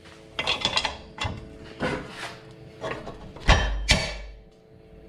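A string of metal clanks and knocks as a 7/8-inch combination wrench is set on and worked against an oxygen sensor threaded into a steel exhaust pipe. The loudest knock, with a dull thump, comes about three and a half seconds in.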